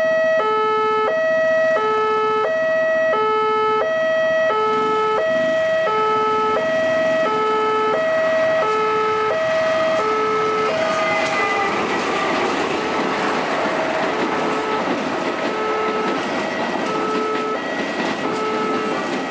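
Two-tone electronic level-crossing alarm, a high and a low note alternating steadily, about one high-low pair every second and a quarter. About eleven seconds in, a diesel-hauled passenger train rolls past close by, and the noise of its wheels and coaches rises over the alarm, which keeps sounding.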